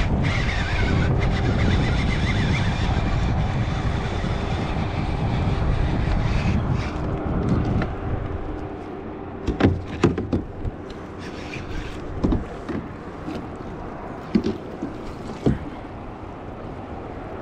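Steady low rumble of wind and water moving past a fishing kayak, easing about halfway through. It is followed by scattered sharp knocks and splashes as a hooked bass is played beside the kayak and the landing net goes into the water.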